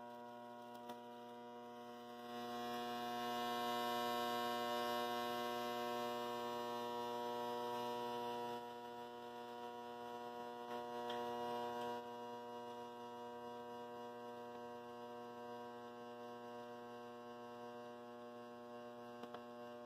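High-frequency solid-state Tesla coil (about 9 MHz) running continuously, its flame-like arc from a carbon-rod breakout point giving a steady hum with a hiss over it. The hiss grows louder about two seconds in and falls back in steps at about eight and twelve seconds.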